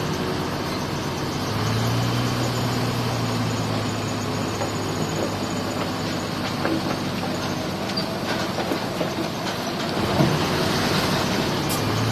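Heavy diesel earthmoving machinery running: a steady engine drone that strengthens about a second and a half in, with a few short knocks.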